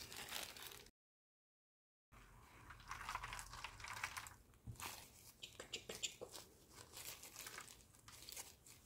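Faint crinkling and rustling of clear plastic disposable gloves and tissue as gloved hands handle a wet tissue, a run of small irregular crackles, broken by a second or so of dead silence about a second in.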